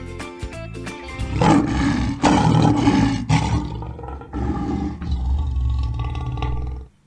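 Lion roaring: a series of deep roars and grunts in several surges lasting about five seconds, cutting off abruptly near the end. Plucked-string background music plays for about the first second.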